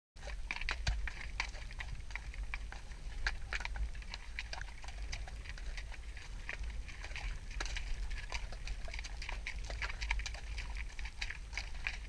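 Horses walking over seaweed and stones, heard as a steady run of irregular clicks and knocks from hooves and tack, over a low rumble on the action-camera microphone.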